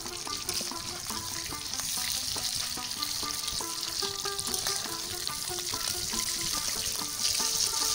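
Cornflour-coated fish pieces frying in hot oil in an iron kadai: a steady sizzle that grows louder near the end.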